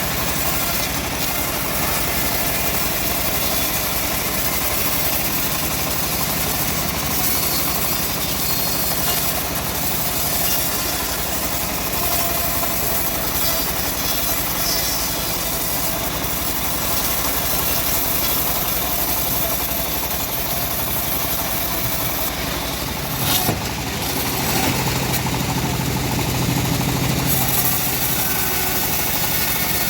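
Engine-driven bandsaw sawmill running steadily, with a short knock about 23 seconds in and a lower steady hum for a few seconds after.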